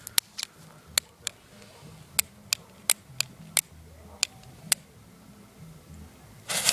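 About a dozen sharp, irregular clicks over the first five seconds. Near the end a loud hiss starts suddenly, as a firework's fuse catches.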